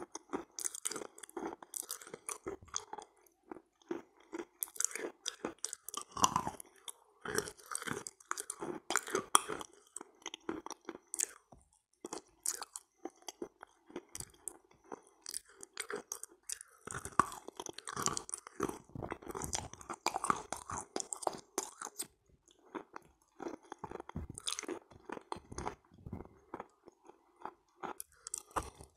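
Close-miked chewing and biting of pressed clay 'halva' coated in kaolin cream: soft, wet crunching and mouth sounds, irregular and continuous, with a quieter stretch about halfway through.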